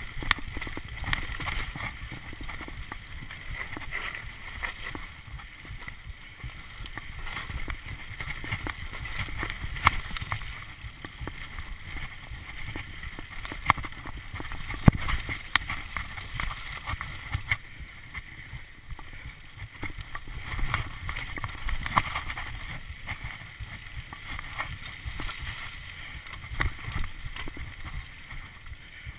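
Mountain bike riding fast down a dirt forest trail: tyres rolling over dirt and roots under a steady rush of wind on the microphone, with the bike rattling and knocking over bumps, a few knocks louder than the rest.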